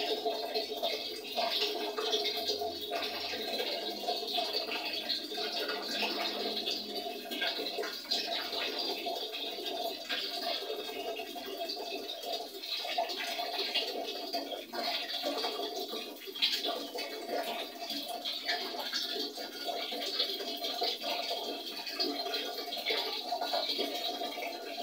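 A thin stream of tap water running steadily from a wall faucet into a basin.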